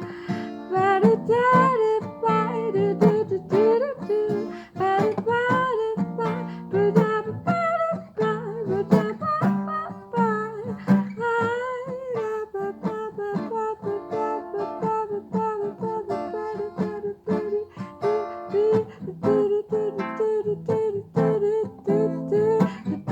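Acoustic guitar picked in a steady run of notes, with a wordless sung line wavering over it.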